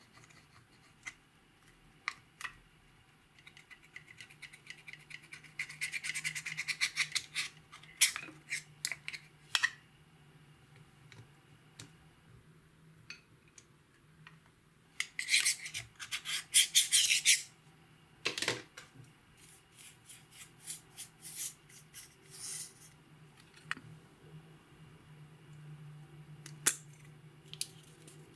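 Close-miked handling sounds of makeup being worked into clear slime: scattered sharp clicks and taps, with two longer stretches of dense crackly scraping.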